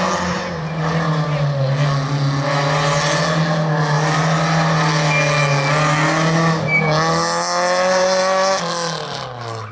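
Citroën rally car's engine revving hard through the slalom, its note held high and fairly steady with small rises and dips, then fading away near the end.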